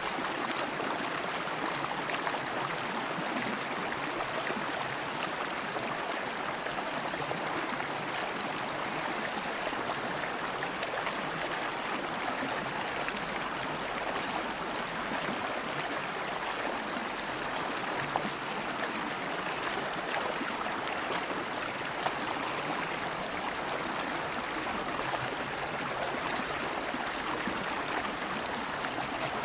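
River water flowing steadily over rocks, an even rushing with small gurgles.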